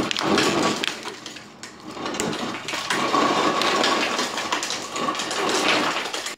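Clear plastic packaging crinkling and crackling as hands handle it and open it up. There is a short lull about a second and a half in.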